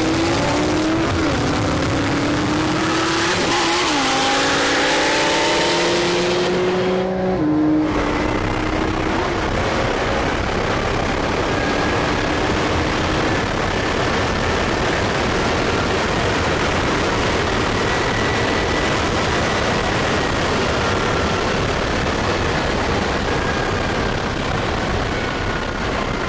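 A car engine pulls hard through the gears, its pitch climbing and dropping back at each upshift. After a cut about 8 seconds in, the sound is inside the twin-turbo Lamborghini Gallardo's cabin at very high speed, where a steady roar of wind and road noise covers the engine and faint whines keep rising.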